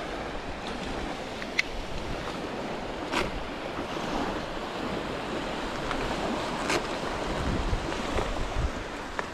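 Small surf waves breaking and washing up a sandy beach, a steady rushing hiss, with wind buffeting the microphone as a low rumble that grows near the end. A few short clicks sound over it.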